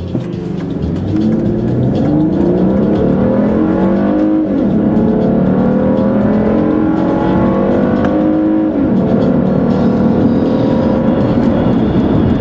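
Car engine accelerating hard from a standstill for a 0–60 run. Its pitch climbs in each gear, with two upshifts about four and a half and nine seconds in.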